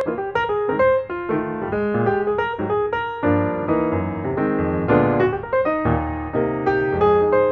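Background piano music: a steady run of quickly struck notes over chords.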